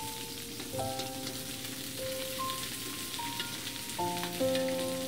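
Ham frying in a hot wok, a steady crackling sizzle as a spatula stirs it. Soft background music of held notes plays over it.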